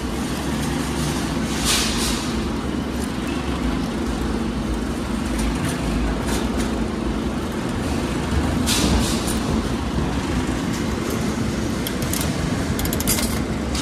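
Steady low hum and rumble of an arcade game room, with clicks from the chrome crank of a coin-operated bouncy-ball vending machine being turned, including a quick run of clicks near the end.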